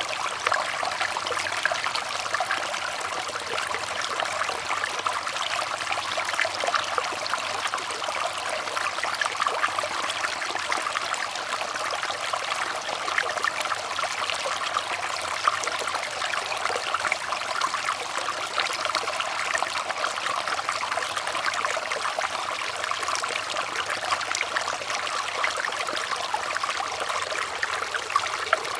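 Water trickling and babbling steadily over stones in a small stream, a dense patter of fine splashes without a break.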